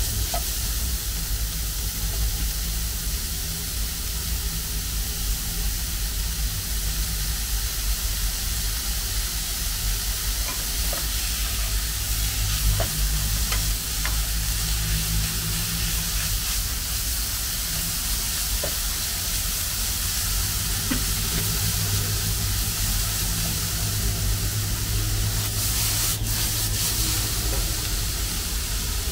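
Food frying and sizzling in a hot pan as it is stir-fried, a steady hiss with a few faint ticks from the utensil, over a steady low hum.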